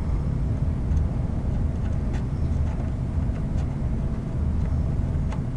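Steady low rumble of workshop background noise, with a few faint light ticks scattered through it.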